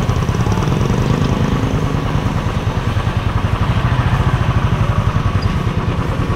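Motorcycle engine running steadily with an even, rapid pulse, heard from the rider's seat.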